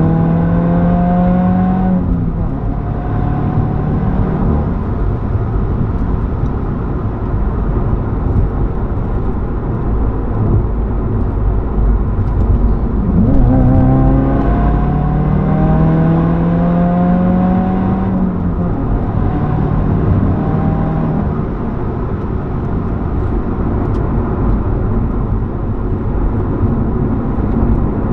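2015 Subaru WRX turbocharged flat-four heard through a muffler delete while driving. The engine note climbs under throttle for the first two seconds, settles into a loud drone with road noise, then climbs again from about halfway through before dropping off.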